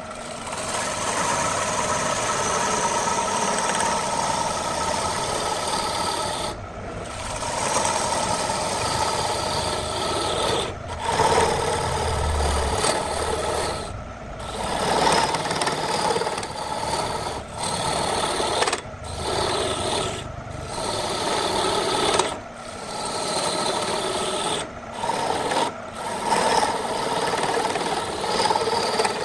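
A turning tool cutting into a spinning wooden bowl blank on a wood lathe: a continuous rough scraping of the cut, broken by short gaps every few seconds as the tool lifts off between passes.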